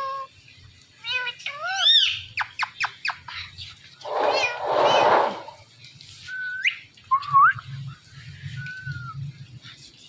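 Indian ringneck parakeet calling: pitched notes that rise and fall, a quick run of short chirps, a harsh noisy burst about four seconds in, then a few short rising whistles.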